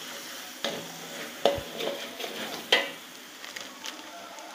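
Metal spatula scraping and knocking against a metal wok while stirring frying oncom and spice paste, over a light sizzle. There are a few sharp scrapes in the first three seconds, then mostly the sizzle.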